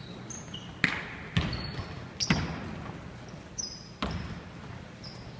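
Basketball bouncing on a wooden gym floor, about four sharp bounces at irregular spacing, with brief high-pitched sneaker squeaks in between.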